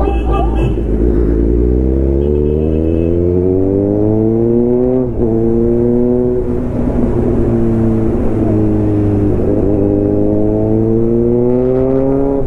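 Kawasaki Z900's inline-four engine accelerating: its pitch climbs steadily, dips sharply at a gear change about five seconds in, then climbs again, with a second short dip shortly before the end and a final rise.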